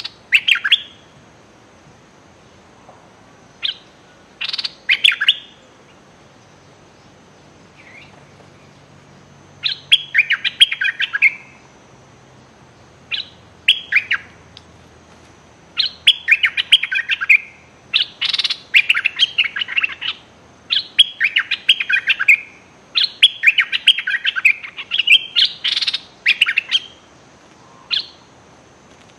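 Bulbuls (merbah lekir), a caged decoy and a wild bird, trading calls in short bursts of quick chattering notes. The calls come closer together until they are nearly continuous in the second half.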